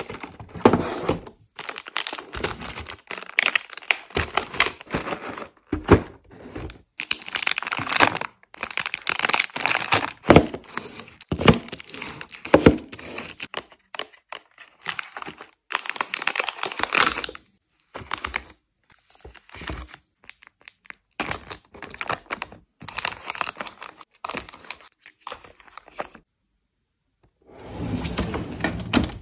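Plastic and foil sweet packaging crinkling as packs are handled, with irregular taps and knocks as cardboard boxes and plastic packs are set down in a drawer, and a short pause near the end.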